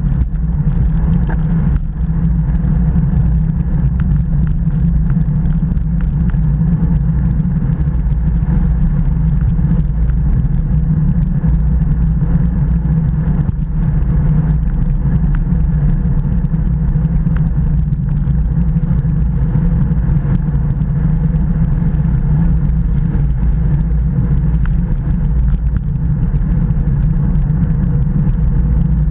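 Steady low wind rumble buffeting a Garmin VIRB action camera's microphone on a bicycle ridden at about 30 km/h, mixed with road and tyre noise.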